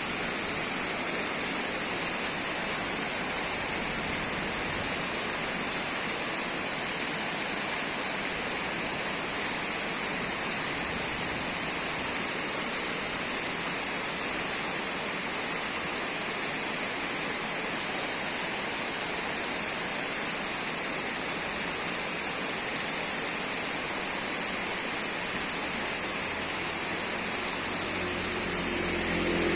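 Heavy rain falling in a steady, unbroken hiss. Near the end a low engine hum comes in under it, as of a passing vehicle.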